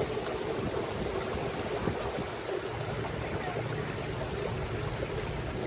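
Steady background rumble and hiss with a faint, even hum.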